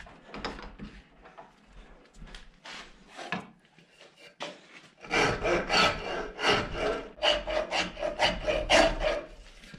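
Wooden axe handle, clamped in a bench vise, being rasped by hand. Light, scattered strokes come first; about five seconds in they turn into a steady run of strong strokes, about two a second.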